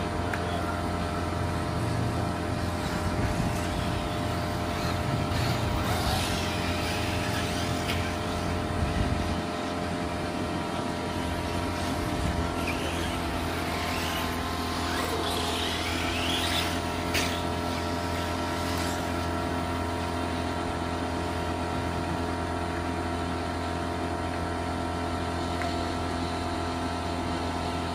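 Electric radio-controlled cars running, their motors whining up and down in pitch over a steady background hum.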